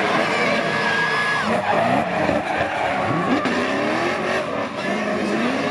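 Drift cars sliding sideways in tandem, engines revving up and down and tyres squealing as they spin on the tarmac. A high, steady tyre squeal stands out in the first second and a half.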